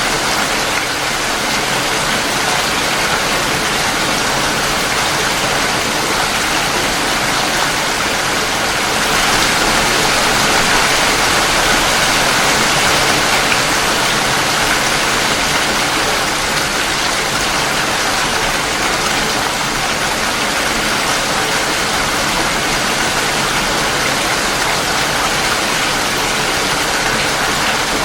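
Steady rain falling, a dense even hiss, swelling slightly about a third of the way through.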